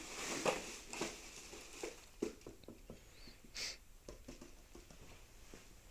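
Scattered light knocks, taps and rustles of handling in a small room, with a sharper knock about half a second in and another just after two seconds, and a brief rustle about three and a half seconds in.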